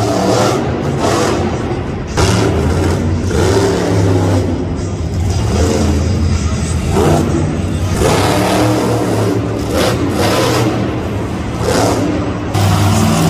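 Monster truck engine revving hard, surging up and down repeatedly as the truck drives and turns on the dirt.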